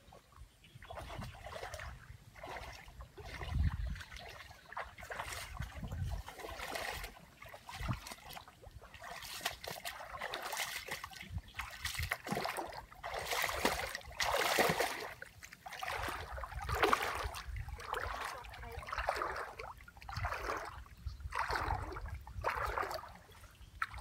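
Shallow water splashing and sloshing in a long series of irregular bursts, like someone wading and moving about in ankle-deep muddy water.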